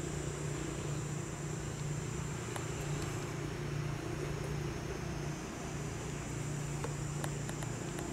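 A steady low hum, like a motor or engine running, with a faint high steady whine above it and a few faint ticks.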